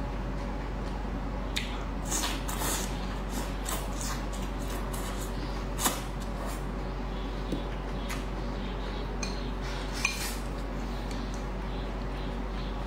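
Eating sounds: wooden chopsticks clicking against a ceramic plate and rice bowl, with soft wet chewing in between. The sharpest clicks come about six and ten seconds in.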